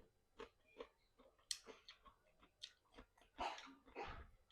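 Faint mouth sounds of someone eating fried chicken: scattered short wet clicks and smacks of chewing, with two louder, longer sounds near the end.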